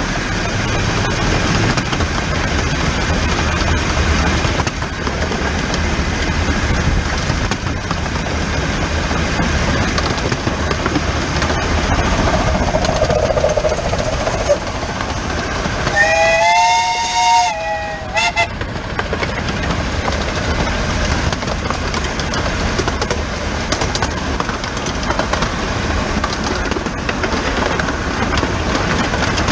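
The small 15-inch-gauge steam locomotive 'The Bug' running on the line, heard up close from its own injector pipe: a steady rumble and clatter of the running gear and track. A little past halfway, a locomotive whistle sounds a two-tone note for about a second and a half, then gives a short toot.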